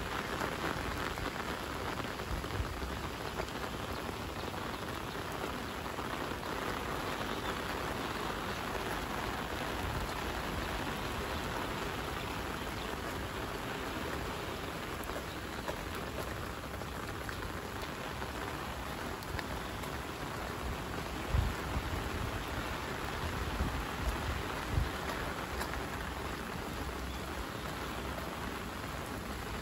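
Steady rain falling on wet pavement and grass, an even hiss, with a few brief low thumps in the second half.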